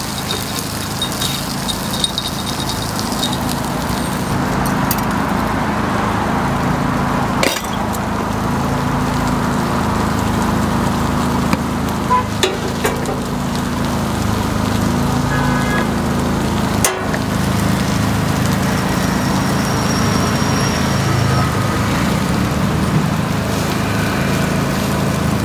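Takoyaki stall working sounds: a steady griddle sizzle over a low background hum, with occasional clinks and a couple of sharp knocks, about a third and two-thirds of the way through.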